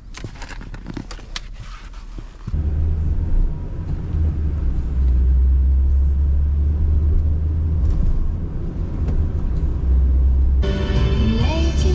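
Car engine running with a steady low rumble that comes in suddenly about two and a half seconds in, after a few light clicks and knocks. Music starts near the end.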